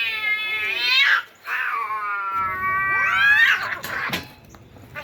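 Rival tomcats caterwauling at each other over a female: long drawn-out yowls that sweep sharply up in pitch twice, then die away near the end.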